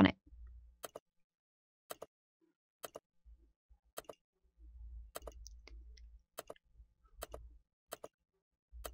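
Computer mouse clicks, about a dozen short, sharp clicks at uneven intervals, some in quick pairs, as cells and buttons are clicked one after another.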